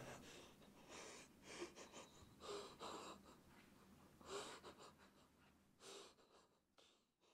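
A man breathing hard in uneven breaths, a handful of them about a second apart, growing fainter and fading out near the end.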